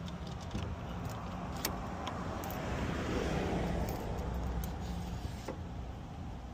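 Aluminium handle tube of a laminate floor cutter sliding, scraping and clicking against its aluminium sleeve as it is worked down toward its groove, with scattered sharp metallic clicks and a louder scraping stretch about three seconds in. A steady low hum runs underneath.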